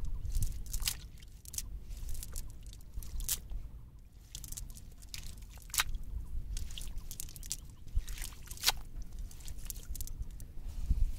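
Wet cast net being picked through by hand on wet sand, up close: irregular soft crackling and squishing from the mesh, with a low rumble from handling about the start and again near the end.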